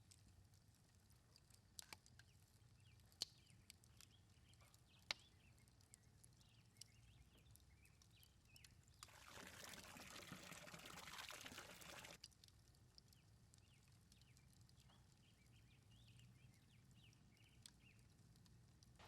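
Liquid pouring for about three seconds midway, a steady rush, amid a few sharp clicks and faint birdsong.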